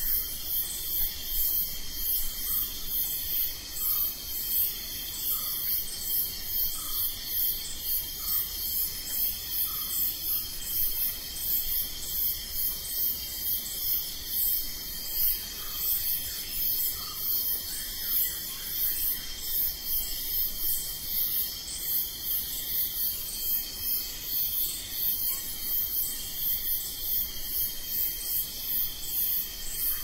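Night chorus of crickets chirping in rapid, evenly repeating pulses over a steady high-pitched trill.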